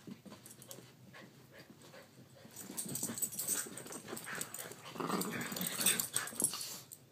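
Two small dogs play-fighting on a carpet: scuffling and play growls, irregular and getting louder and busier in the second half.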